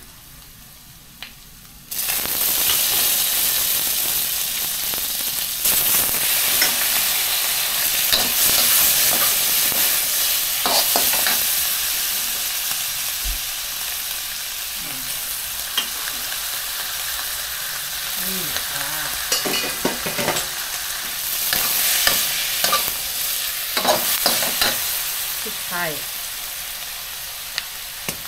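Food stir-frying in hot pork lard in a pan: about two seconds in, a loud sizzle breaks out suddenly as ingredients hit the fat, then keeps going, slowly easing, while it is stirred with scattered knocks of the spatula.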